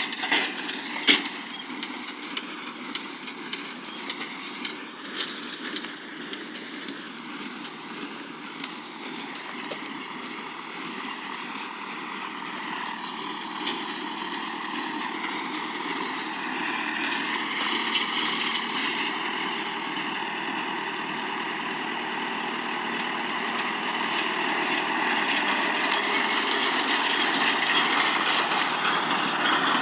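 Deutz-Fahr M410's engine running steadily while baling, its pitch wavering slightly, with a couple of sharp knocks about a second in. It grows gradually louder toward the end.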